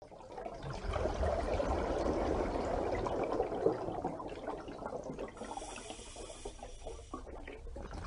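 Running water, a continuous rushing noise, with a brighter, higher hiss added from about five to seven seconds in.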